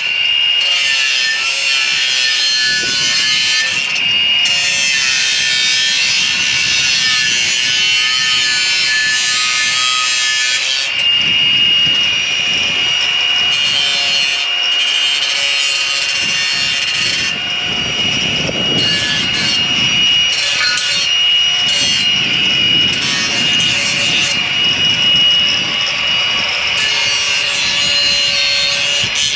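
A power tool cutting steadily, with a constant high whine over a rasping cut, as a leg section of a tripod deer feeder is trimmed down.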